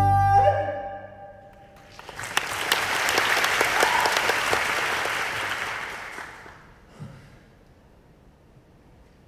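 The last held chord of the music dies away, then an audience applauds for about four seconds, swelling and then fading out.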